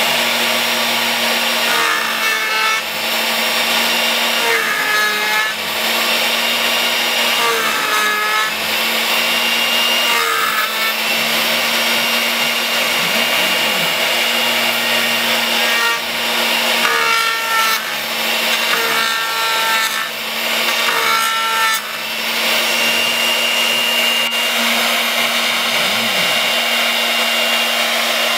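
Camaster Stinger II CNC router's spindle running steadily while its bit cuts dovetail tails into the end grain of a board, a loud even cutting noise. Short rising-and-falling whines come several times as the axis motors move the spindle between passes.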